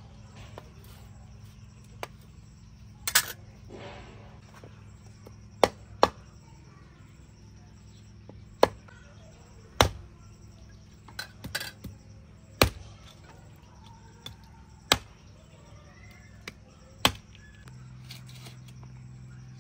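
Meat cleaver chopping cleaned beef trotters into pieces: a dozen or so sharp chops through bone, spaced one to three seconds apart, with a quick run of strikes near the middle.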